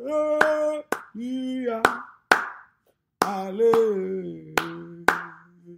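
Hands clapping a steady beat, mostly in pairs of claps about half a second apart, under a voice chanting a long, drawn-out 'hallelujah' in praise worship.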